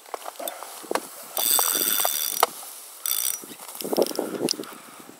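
Fishing reel's drag buzzing as a hooked carp pulls line off against it: one high buzz of about a second, then a shorter one, with scattered clicks from the reel and the handling.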